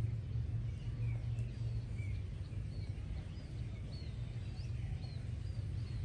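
Ducklings peeping: many short, thin, high chirps, several a second, over a steady low rumble.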